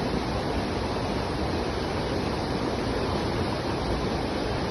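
Sekumpul Waterfall's water crashing down at its base: a loud, steady, unbroken rush.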